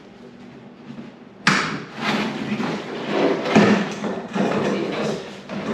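A stiff plastic Dominator race-car nose cover being lifted and turned over, rubbing and knocking against the concrete floor: quiet at first, then a sharp knock about a second and a half in, followed by irregular rubbing and several more knocks.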